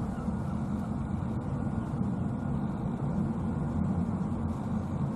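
Light helicopter hovering overhead, its rotor and engine running steadily with a low, even throb.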